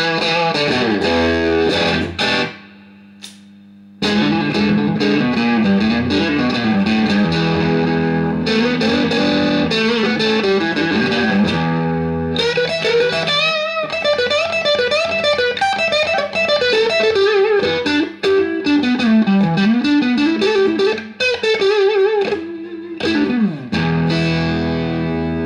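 Electric guitar played through a BYOC kit clone of the Roger Mayer Octavia octave fuzz pedal into a Marshall JCM2000 DSL401 valve combo amp: distorted, octave-doubled lead lines with string bends, a short pause about two and a half seconds in, ending on held notes.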